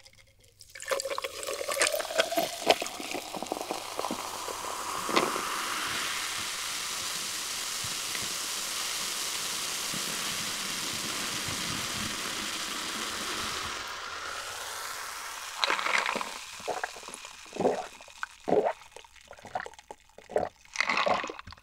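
Dark fizzy soda poured from a plastic bottle over ice into a glass jar mug. It fizzes with a steady hiss, and the pitch of the pour rises as the jar fills. After the fizz dies down, a run of loud gulps follows as it is drunk.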